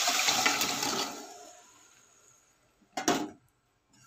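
Boiled mutton bones and their cooking water poured from a bowl into a pressure cooker of frying masala, splashing and hissing, the hiss fading away over about two seconds. A short knock follows about three seconds in.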